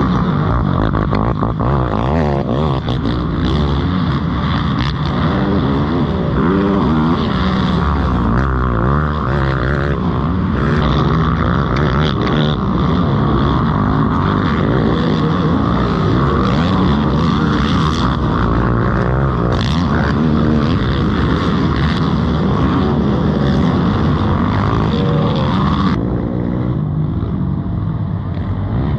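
Yamaha YFZ450R race quads' single-cylinder four-stroke engines revving hard, pitch rising and falling as the riders accelerate and shift through the track. Near the end the sound turns a little quieter and duller.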